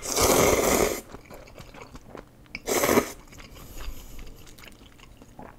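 A person slurping curry ramen noodles loudly, a long slurp lasting about a second and a shorter one nearly three seconds in, then chewing quietly with their mouth full.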